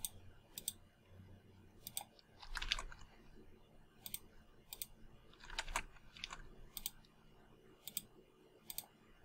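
Faint computer mouse clicks, about ten of them at irregular spacing, as lines are picked one after another for a fillet in CAD software.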